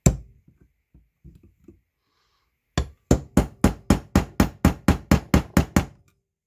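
Hammer striking a steel punch to flatten and set a new lead ball plug into a hidden-passage hole in a Weber IDA carburetor's body. One sharp blow and a few light taps come first, then a quick, even run of about thirteen blows, about four a second.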